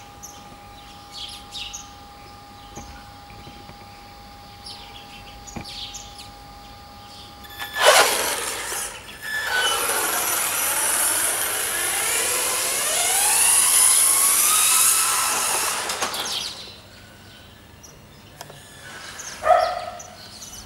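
Battery-powered RC car's electric motor whining close by for about eight seconds, with its pitch rising and falling as it speeds up and slows, over a noisy hiss. It starts with a sudden loud burst about eight seconds in. Birds chirp faintly before and after.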